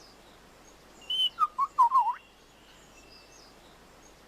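Lyrebird singing a brief phrase about a second in. A short high whistle is followed by several quick looping whistled notes lower down, mixed with a few sharp clicks.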